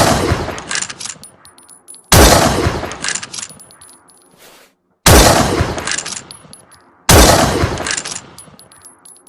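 Remington Model 700 bolt-action rifle firing: three loud single shots about two to three seconds apart, with the tail of a fourth shot at the start. Each shot dies away slowly with a few sharp metallic clicks.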